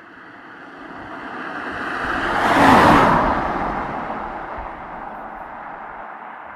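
A car passing by: it swells up steadily, is loudest and closest about three seconds in, then fades away.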